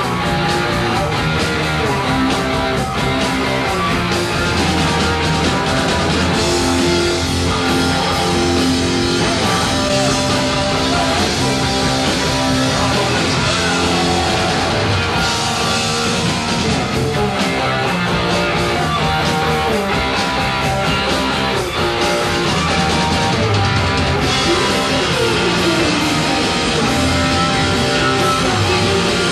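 Punk rock band playing live: distorted electric guitar, bass and drum kit driving through the song at a steady, loud level.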